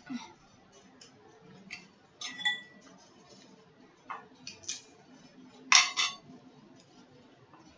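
Shellfish shells from a seafood boil being cracked and picked apart by hand, a run of sharp snaps and crackles with the loudest burst of cracking about six seconds in. A utensil gives a short ringing clink against a dish about two seconds in.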